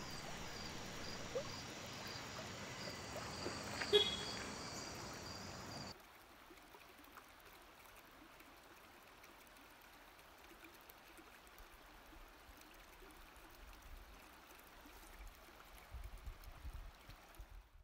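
Creekside ambience: a steady hiss of running stream water with insects chirping in a regular pulse, and one short chirp about four seconds in. It cuts off suddenly about six seconds in, leaving near silence.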